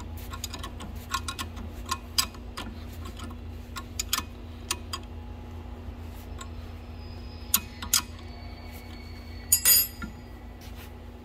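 Ratcheting box-end wrench clicking in irregular runs as it tightens a cone-lock (Stover) nut on a bolt held in a bench vise. There are fewer clicks later and a few louder metal clinks near the end.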